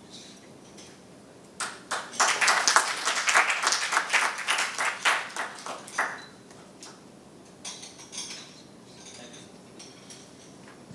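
Audience applauding, starting about one and a half seconds in and dying away after about four seconds, followed by a few faint scattered sounds.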